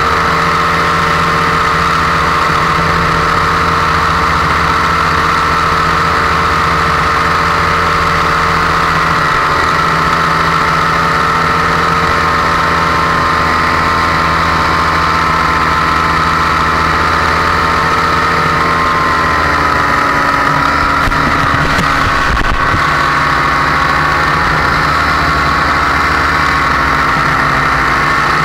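Blackhawk paramotor's backpack engine and propeller running steadily in flight. The engine note slides lower about two-thirds of the way through as the revs come down, then climbs again near the end.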